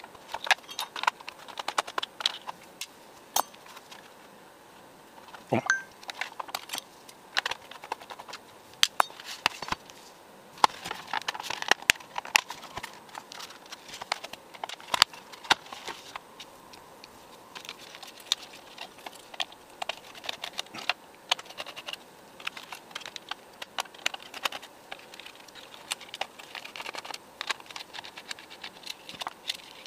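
Handling noise from taking apart a Blackmagic ATEM Mini Pro ISO video switcher's case: a screwdriver working the screws on its underside, then the case halves being lifted apart, giving irregular clicks, taps and light rattles.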